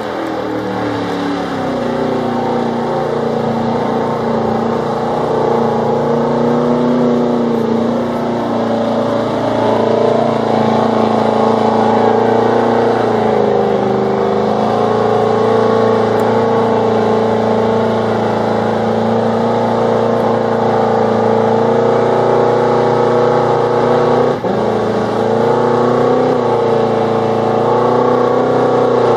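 Mega truck's engine held at high revs as it churns through a deep mud pit: a loud, continuous drone whose pitch wavers slowly. It dips briefly about 24 seconds in.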